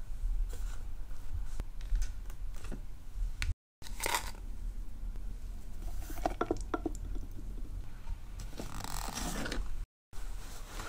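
Handling noise: scattered clicks, rustling and scraping, broken twice by a brief drop-out to silence, about a third of the way in and near the end.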